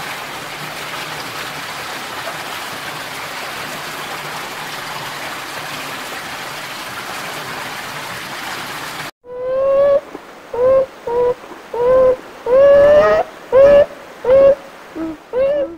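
A steady, even rushing noise like running water. About nine seconds in it cuts off and hoary marmots squeal in a string of about ten loud, short pitched calls, some rising and falling.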